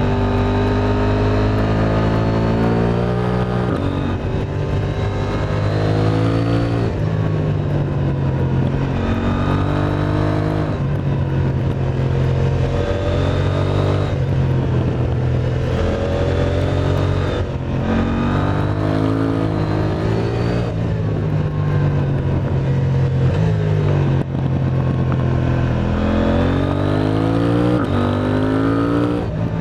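KTM 890 Duke R's parallel-twin engine with an Akrapovic exhaust, accelerating hard and shifting up over and over. The pitch climbs and drops back at each gear change, about every three seconds.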